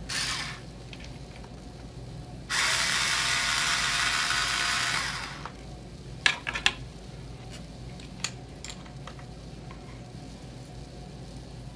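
Small cordless electric screwdriver with a size 1 Phillips bit running steadily for about three seconds, driving a tiny screw back in, then a few sharp clicks.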